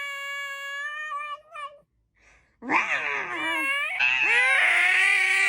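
Domestic cat giving long, drawn-out meows: one steady call that breaks off about two seconds in, then after a short pause a second, louder call that dips in pitch and then holds.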